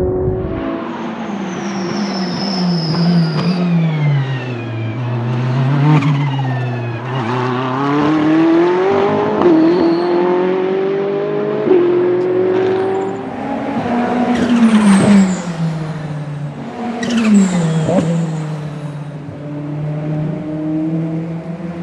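Ferrari 488 GT3's twin-turbo V8 race engine accelerating and lifting off repeatedly, its pitch climbing and then dropping with abrupt jumps at each gear change. A high whistle slides down several times as the turbos spool down, with turbo flutter on lift-off.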